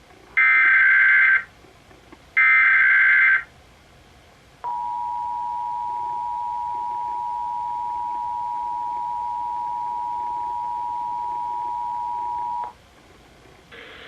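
Emergency Alert System tones announcing a National Periodic Test. First come the last two of the three SAME header data bursts, each a harsh warbling tone about a second long, a second apart. Then the EAS two-tone attention signal (853 and 960 Hz) is held steady for about eight seconds and cuts off abruptly.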